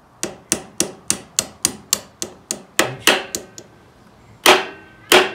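A mallet tapping a bar set against the old urethane handlebar riser bushing in the motorcycle's triple tree, driving the bushing out. About a dozen quick light taps come at roughly three a second, then two heavier blows near the end.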